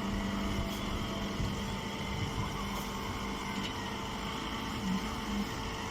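Hay baler machine running with a steady mechanical hum.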